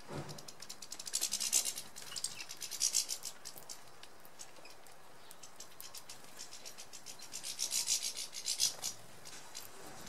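Goldfinches and a greenfinch at a garden seed table: two spells of rapid high-pitched ticking and twittering, about a second in and again near the end.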